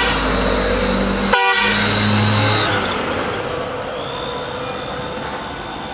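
Decorated truck's air horns sounding held notes, with a sharp crackling burst about a second and a half in. The horn notes stop before the halfway point, and a fainter high tone follows near the end.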